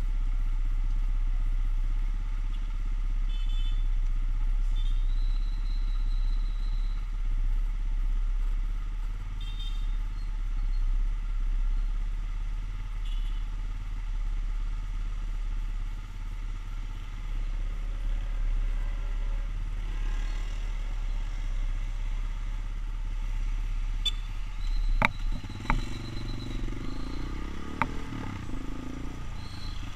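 Motorcycle engine idling steadily in traffic, with other motorbikes running close by and a few brief high tones. A couple of sharp clicks come about 25 seconds in, and then the engine revs up as the bike pulls away.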